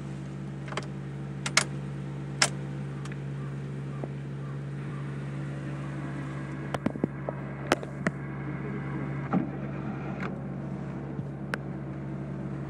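Suzuki Wagon R FX-S's 660 cc three-cylinder engine idling steadily, with a few sharp clicks over it.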